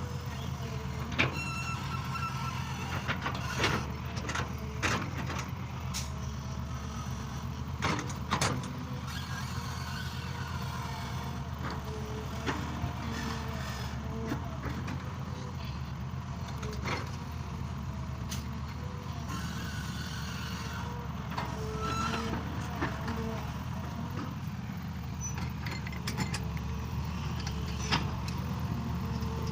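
Excavator's diesel engine running steadily, with sharp knocks scattered through and short squeaks now and then.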